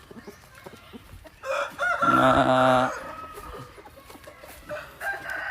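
A gamecock crows once, loud, starting about a second and a half in and lasting about a second and a half. A fainter chicken call follows near the end.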